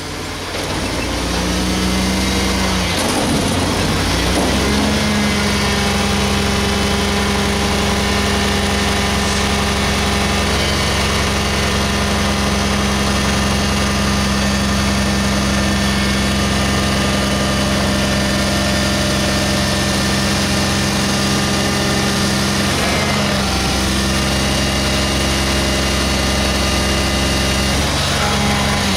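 Front-loading garbage truck's diesel engine revved up to drive the hydraulics while the forks hold a dumpster up over the cab, a steady hum. The revs rise about four seconds in and drop briefly about twenty-three seconds in before coming back up.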